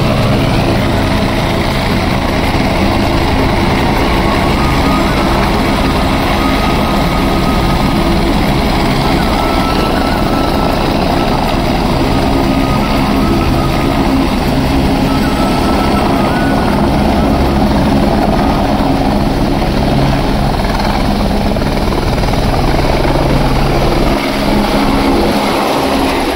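Single-rotor helicopter running loud and steady with its main rotor turning, then lifting off and climbing away near the end.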